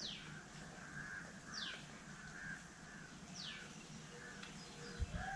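Birds calling faintly in the background: crow-like cawing and a high whistle that falls in pitch, repeated about every second and a half to two seconds.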